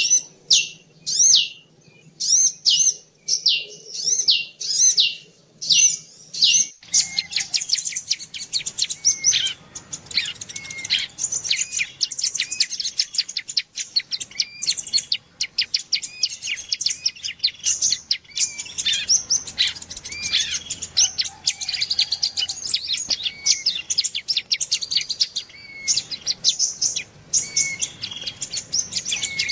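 Bird-lure recording of prinia (ciblek) and sunbird (kolibri) calls. It opens with a loud, sharp chirp repeated about twice a second, which gives way about seven seconds in to a fast, dense chatter of many high chirps and trills.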